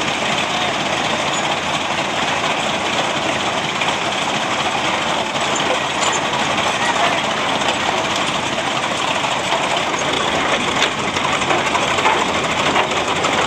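Large antique New Huber traction engine running as it drives slowly by on steel wheels, a steady dense mechanical clatter of engine and running gear.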